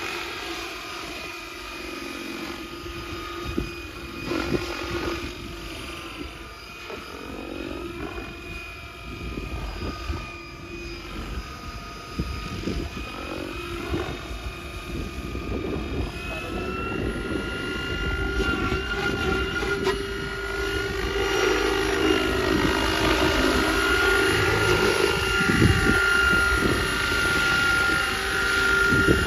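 SAB Goblin Mavraken 800-size RC helicopter flying, its rotor and drivetrain whine bending up and down in pitch as it manoeuvres. It grows louder about halfway through.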